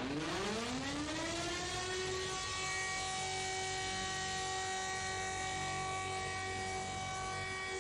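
Civil defense siren winding up: its pitch rises from low over about the first two seconds, then it holds one steady tone.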